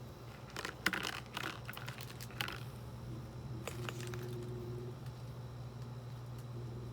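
Light clicks and taps, a cluster of them in the first couple of seconds and one more a little later, over a steady low hum.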